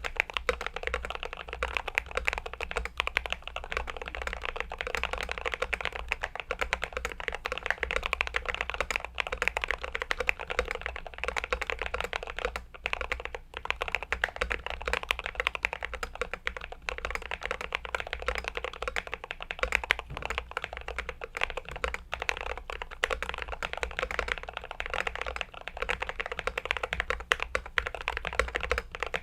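Glorious GMMK Pro aluminium-cased mechanical keyboard being typed on fast and without letup, a dense stream of keystroke clacks with a couple of brief pauses about thirteen seconds in.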